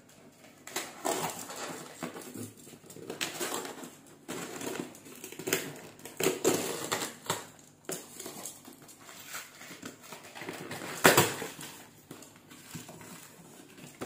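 Box cutter slicing through packing tape and corrugated cardboard along the seam of a long shipping box, with irregular scraping, crinkling strokes as the cardboard is cut and pulled apart. One sharp, louder stroke comes about eleven seconds in.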